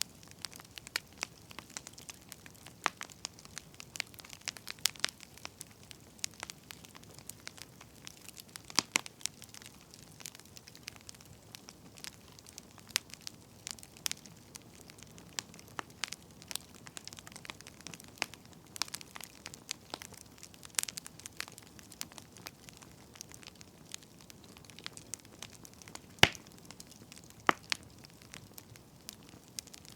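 Firewood burning, crackling with irregular sharp pops over a soft steady hiss. One pop near the end is louder than the rest.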